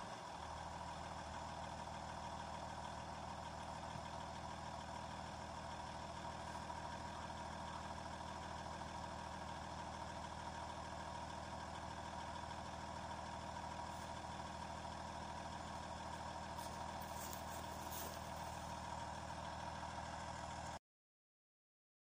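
Audi A4 B5 2.5 V6 TDI diesel engine idling steadily, heard close to the tailpipe.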